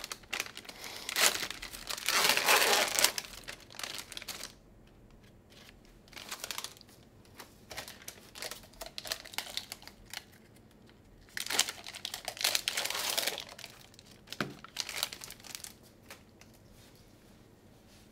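Sterile packaging being handled and opened in gloved hands: paper and plastic peel pouches and a paper drape crinkling and tearing in several bursts, the loudest within the first few seconds, as syringes and other equipment are unpacked.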